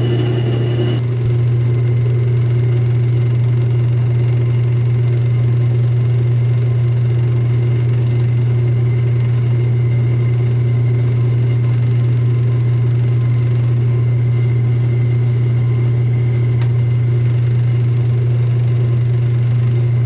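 Jet benchtop lathe running steadily, a constant low motor hum as it spins a pen blank on the mandrel for wet sanding.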